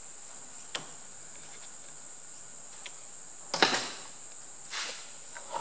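Metal knocks and clatters from a tractor engine oil pump being handled and turned over on the bench: a light click about a second in, a louder clatter a little after three and a half seconds, and a softer knock about a second later. A steady high-pitched drone runs behind it.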